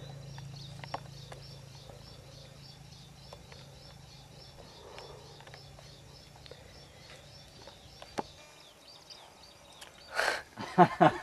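Faint high chirping, repeating about three times a second, over a low steady hum; both stop about eight seconds in. A person's voice comes in loudly near the end.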